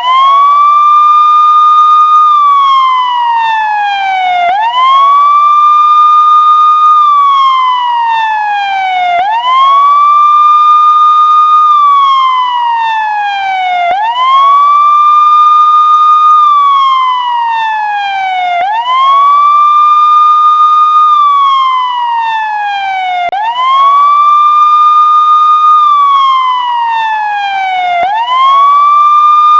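Police siren sounding a steady, loud slow wail: each cycle rises quickly, holds its high pitch for about two seconds, then slides slowly down, repeating about every four and a half seconds.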